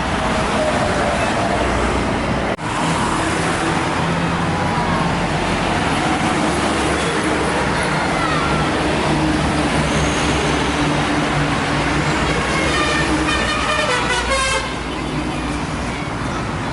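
Heavy road traffic with buses and trucks passing. Near the end a bus's multi-tone telolet horn plays a short stepping tune.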